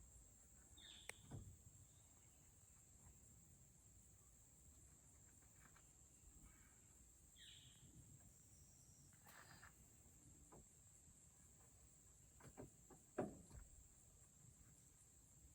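Near silence outdoors: a faint, steady, high-pitched insect drone, with a few soft knocks scattered through it.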